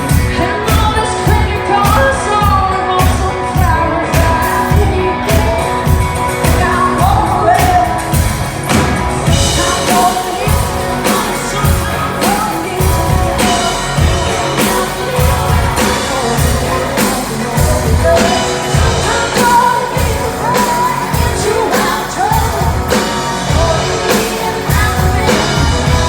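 Country song: a lead vocalist sings over a full band with a steady drum beat.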